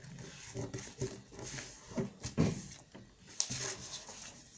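Hands folding and creasing a sheet of printer paper on a tabletop: soft, intermittent rustles and scrapes of paper against paper and table.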